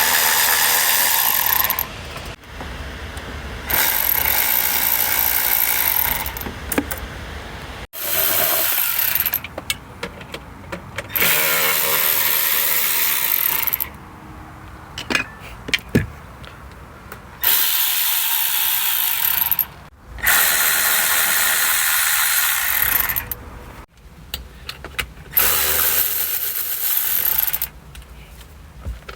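Milwaukee M12 3/8-inch cordless power ratchet running in repeated bursts of two to three seconds, about seven times, as it spins fasteners, with short pauses between runs.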